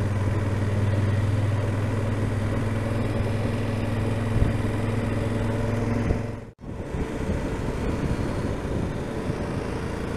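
Yamaha XT1200Z Super Ténéré's parallel-twin engine running at a steady cruise, with wind and road noise. The sound cuts out for a moment about six and a half seconds in, then carries on.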